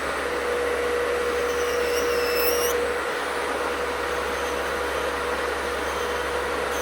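Electric nail drill running a medium debulking bit against acrylic or gel, its high whine wavering in pitch between about one and three seconds in, over the steady rush of a fan.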